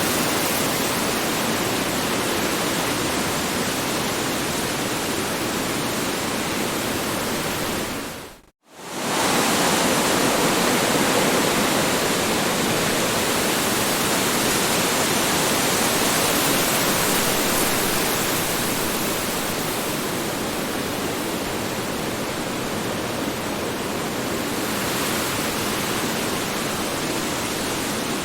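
Strong wind rushing steadily with an even, full-range noise. It briefly fades out to near silence and swells back about eight and a half seconds in, like the seam of a looped recording.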